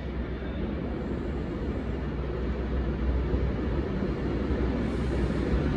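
Diesel locomotive engine running with a steady low rumble, growing slightly louder.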